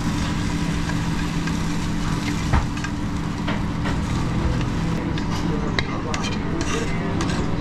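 Metal tongs scraping and clicking against a pan as fried rice is tipped out onto a plate, over a steady hiss and hum of a commercial kitchen.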